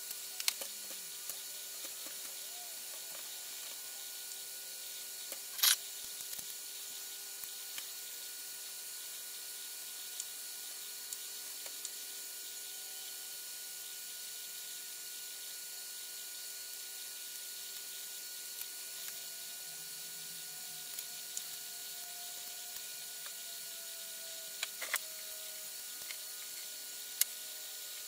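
Quiet steady hiss with a faint hum. A few scattered light clicks and ticks come from copper magnet wire being pulled apart and cut with a hobby knife.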